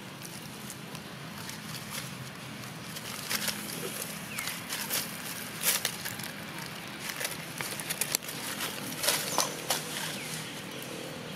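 Dry leaf litter crackling and rustling in irregular sharp clicks as macaques move over it, with a couple of short high squeaks.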